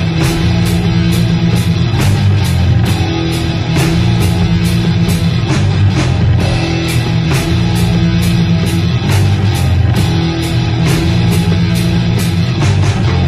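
Raw death metal recording: heavily distorted guitar and bass playing a low riff over drums, which strike at a steady pulse of roughly two hits a second.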